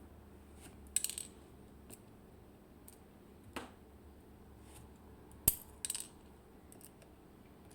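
Small metal driver pins from a disassembled IKON SK6 lock cylinder clinking against a hard surface. There are a few scattered light clicks, the sharpest about five and a half seconds in.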